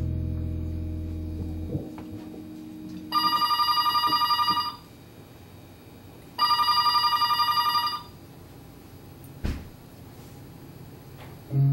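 A telephone rings twice with a fast electronic warble, each ring about a second and a half long. Before the rings, the band's last sustained low chord cuts off; band music starts again near the end.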